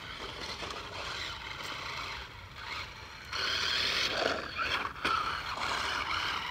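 Toy remote-control car's electric motor whirring and its wheels scraping over the ground as it pops wheelies, louder for a couple of seconds from about halfway.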